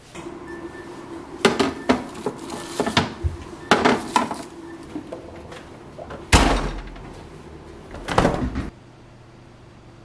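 Plastic food containers and lids being handled, knocked and set down on refrigerator shelves: a string of clatters and knocks, with a heavier thud a little past six seconds in and another clatter near the end. A low steady hum runs underneath and stops with them.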